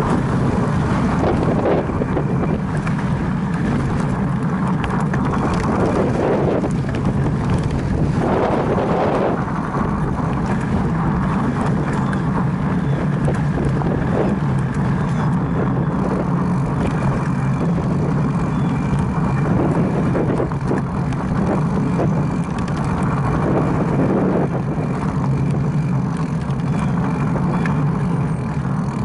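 Mountain bike rolling along dirt singletrack, heard through a rider-mounted camera: steady wind rumble on the microphone over the tyre and trail rattle.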